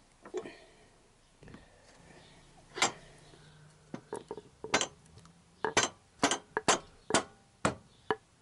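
Sharp knocks of a bolt being driven through a motorcycle frame's engine mount and crash-bar bracket with a wooden drift, about a dozen blows at an uneven pace, mostly in the second half.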